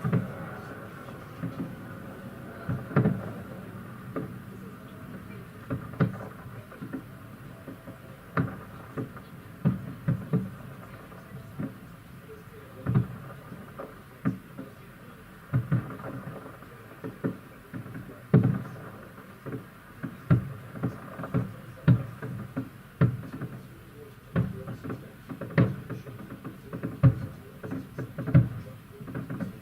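Distant fireworks going off: a string of irregular dull bangs and booms, sometimes two or three in quick succession, over a steady background hum.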